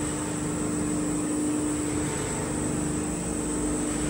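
GM-3000 five-unit cold-press oil machine running: a steady mechanical drone of its electric motors and press screws, with a constant low hum.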